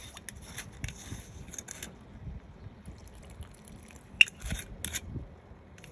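Water boiling in a stainless steel pot, bubbling with small scattered pops, while liquor is poured in from a glass bottle. A single sharp clink about four seconds in.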